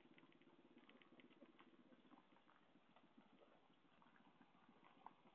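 Faint, fast rattling of a child's ride-on quad bike rolling along the road, a dense run of quick ticks with scattered clicks.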